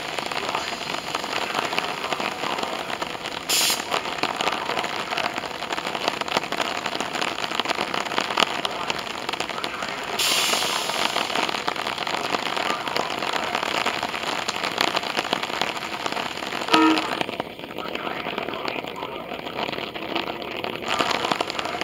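Steady heavy rain falling on the platform and tracks, a continuous hiss, with an approaching SEPTA electric commuter train underneath it. A short pitched horn toot sounds near the end.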